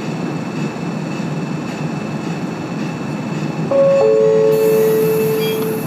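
Inside a Manyosen De7070 tram halted at a stop: a steady low running hum, then about four seconds in a loud steady signal tone lasting nearly two seconds, with a hiss of air rising under it as it departs.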